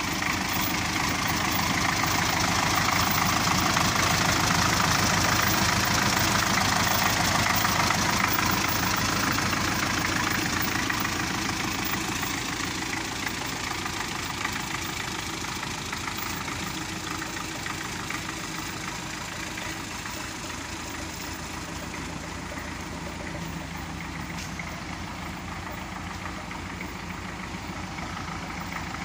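MTZ-52 tractor's four-cylinder D-50 diesel engine idling steadily, louder for the first several seconds and then lower.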